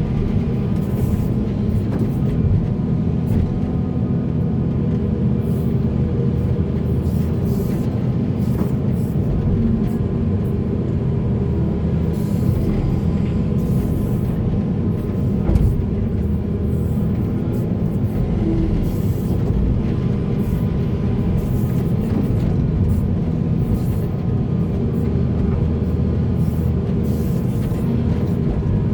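Heavy diesel earthmoving machinery, excavator and dump trucks, running under load as a steady low rumble, with a few faint knocks of material and metal.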